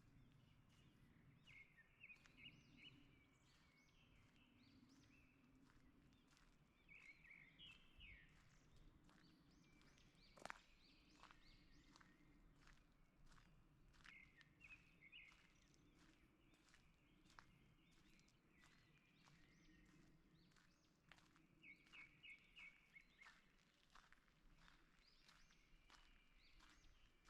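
Faint forest birdsong, short bursts of chirping phrases coming every few seconds, over a walker's steady footsteps on a forest path, with one sharper click about ten seconds in.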